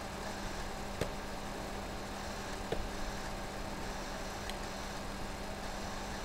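Steady background hiss and low hum picked up by a desktop recording microphone, with two faint short clicks about one and three seconds in.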